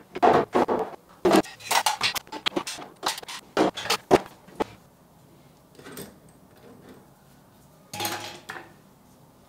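Toiletry bottles, jars and small plastic bins clinking and knocking as they are picked up and set down on bathroom cabinet shelves. A quick run of sharp clicks fills the first four or five seconds, then it goes quieter with a few light taps, and there is a short clatter near the end.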